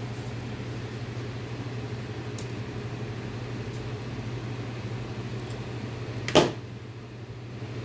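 Steady low hum of a room appliance or fan, with a single sharp click about six seconds in as a knife pries at the seam of an aluminium soft-plastic bait mold.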